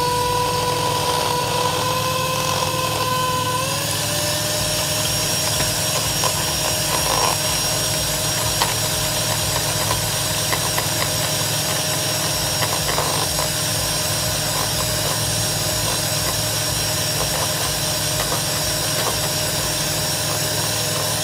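Electric hand mixer running at high speed, its beaters whipping chilled heavy cream in a bowl: a steady motor whine whose pitch rises a little about four seconds in.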